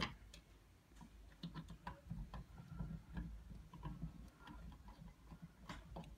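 Hand screwdriver turning the mounting screws of a plastic TV wall plate, making faint irregular clicks and ticks, with one sharper click right at the start. The screws are being driven only to a loose hold.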